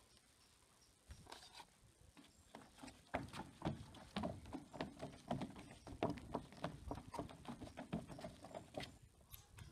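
Footsteps of two children running on wooden decking: a quick, irregular patter of steps that starts about a second in and gets louder from about three seconds in.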